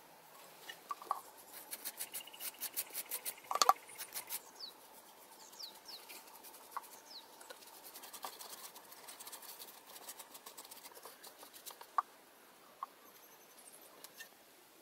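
Quick, faint scratchy taps of a wooden stick crushing flowers and berries inside a bamboo tube, with one sharper knock about three and a half seconds in. Fainter scattered scratching and ticks follow.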